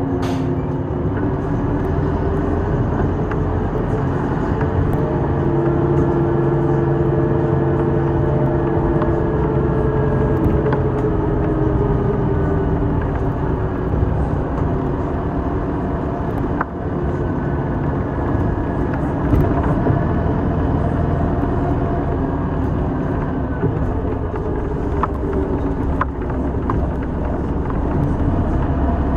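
City bus driving along, heard from inside the cabin: steady engine and road noise, the engine's hum rising and falling in pitch as the bus speeds up and slows, with a few light clicks and rattles.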